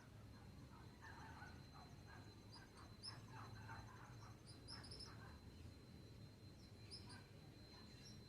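Faint birdsong: clusters of short, high chirps every couple of seconds, with a lower chattering call through the first half, over a steady high-pitched insect drone and a low hum.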